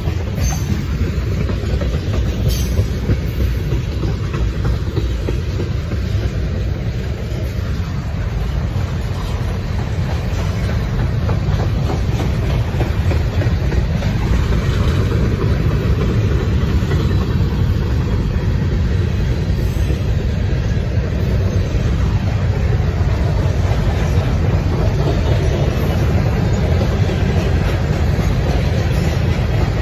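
Freight cars rolling past close by: a loud, steady rumble of steel wheels on the rails, with a few clicks.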